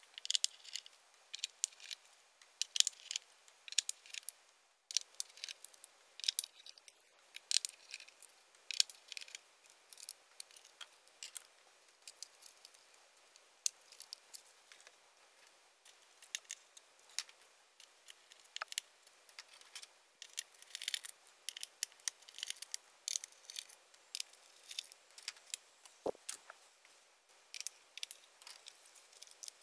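Irregular light clicks, taps and scrapes of small-parts disassembly: a small screwdriver backing out screws, and the plastic lens optics and metal parts of an LED aquarium light being handled and set down.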